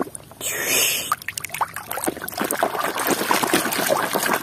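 Water splashing and sloshing as a hand swishes a toy car back and forth under shallow water to wash the mud off, with a quick, irregular run of small splashes.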